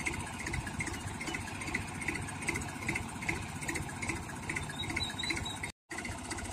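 Diesel tractor engine idling steadily with an even pulse. The sound cuts out completely for an instant near the end.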